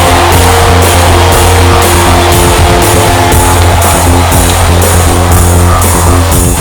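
Loud rock music with a steady beat of about two a second over a heavy, sustained bass.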